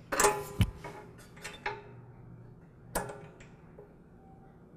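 Metal clicks and clacks of a fuel line clamp being worked onto the new fuel line at the carburetor: a quick run of clicks in the first second, a few lighter ones after, and a single sharp click about three seconds in.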